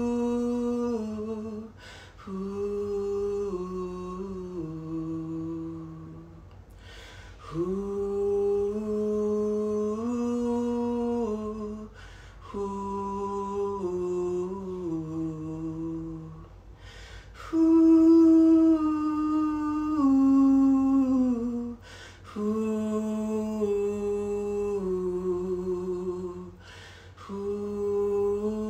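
A man humming a slow wordless melody into a studio microphone, in phrases of about five seconds with short breaths between, the pitch stepping downward through each phrase. The take is a melody track being recorded without a metronome.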